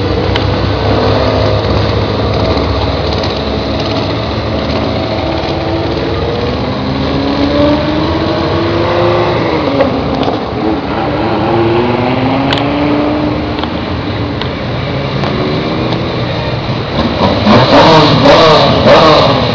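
Rally car engine revving hard through its gears as it approaches, each rise in pitch cut off by a shift. It gets much louder as the car passes close by near the end.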